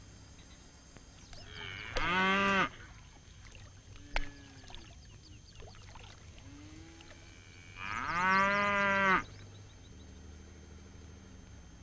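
Water buffalo lowing: two loud calls, a short one about two seconds in and a longer one about eight seconds in, with fainter calls between them.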